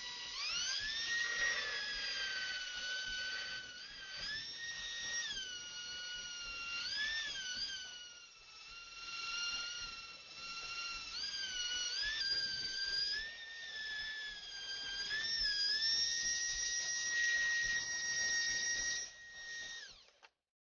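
Flex-shaft rotary tool spinning a small polishing wheel against a cow-bone pendant: a high whine that rises as the motor gets up to speed, dips in pitch each time the wheel is pressed into the bone and picks back up when the pressure eases, then stops near the end.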